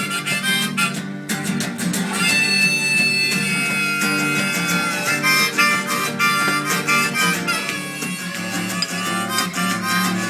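Instrumental break in a folk song: harmonica playing a melody over strummed acoustic guitar, with no singing.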